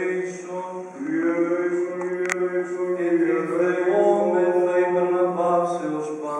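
Greek Orthodox Byzantine chant by a male voice: a slow melody of long held and gliding notes over a steady low held note (the ison drone). A single sharp click about two seconds in.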